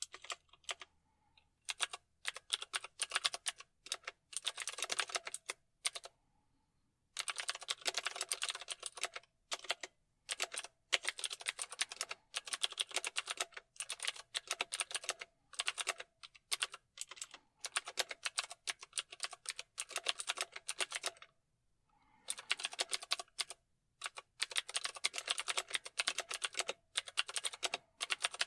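Fast typing on a keyboard: rapid runs of key clicks in bursts, broken by short pauses.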